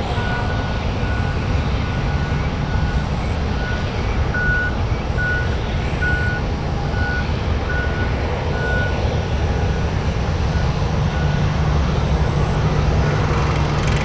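Boeing 737-800's CFM56 jet engines running at taxi power as the airliner rolls past, a steady low rumble. A short high beep repeats about twice a second, irregularly, through most of it.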